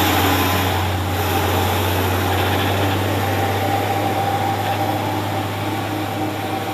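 Road traffic on a hill climb: a heavy truck's diesel engine drones steadily as it climbs away, fading slowly, while a car passes close by.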